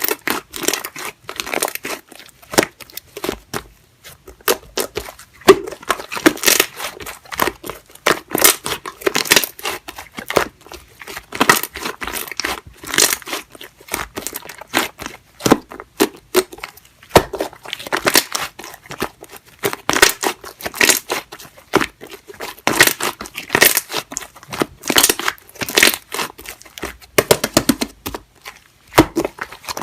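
Hands repeatedly squeezing and crinkling a soft, jelly-like handmade squishy toy: irregular crackling, crinkly strokes about once a second.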